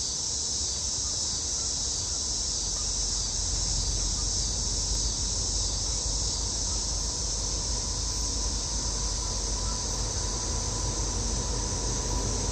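Steady, high-pitched buzzing of insects, with a low rumble underneath that swells a little about three seconds in.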